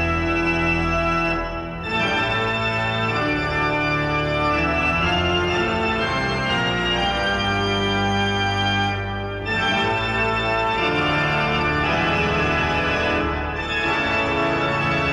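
Background music carried by an organ playing held chords that change every second or two, with brief dips in level about two, nine and thirteen and a half seconds in.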